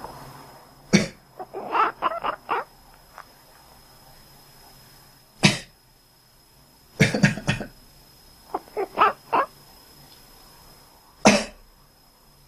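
A person coughing, and a pet cat answering with a quick run of about five short quacking chirps. Single coughs come about a second in, midway and near the end, with a burst of coughs a little after the middle; the cat's chirps follow the first cough and the burst.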